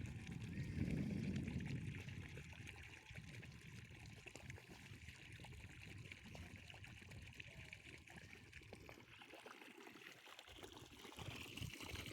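Water trickling and splashing lightly and steadily, as from a garden hose or irrigation line running into a tree basin, with a low rumble in the first couple of seconds.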